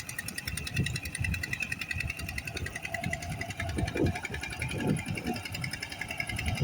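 An engine running steadily with a fast, even beat, with irregular low knocks over it.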